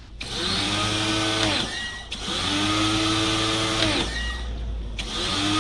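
Home pressure washer motor running in three short spray bursts, spraying soapy water with a hiss. Each time the trigger is released the motor winds down, and it whines back up to speed when squeezed again.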